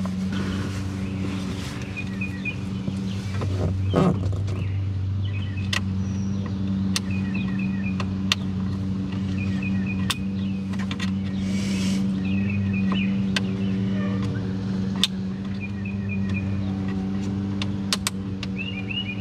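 A steady low motor hum with scattered light clicks and a louder knock about four seconds in, while short high chirps, likely birds, come in small groups.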